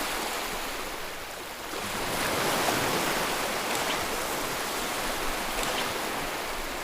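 Steady rushing ambient noise, like wind or surf, swelling a little about two seconds in, with a few faint ticks.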